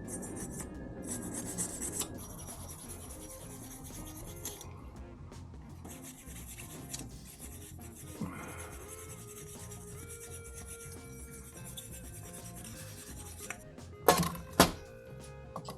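Rubbing and scraping as carburetor parts are cleaned by hand, with two sharp knocks a little before the end.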